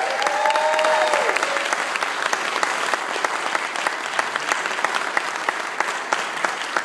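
Congregation applauding, a dense steady clapping, with a few cheering whoops in about the first second that trail off.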